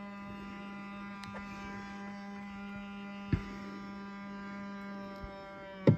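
2000 Ford Explorer power side-mirror motor humming in one steady buzzing tone, with a faint click about halfway through; the hum stops just before the end.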